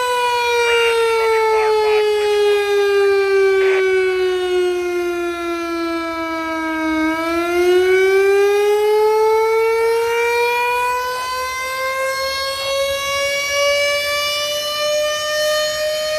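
Rooftop electromechanical warning siren sounding a fire call. Its single wailing tone slowly falls in pitch for about seven seconds, then winds back up and rises steadily.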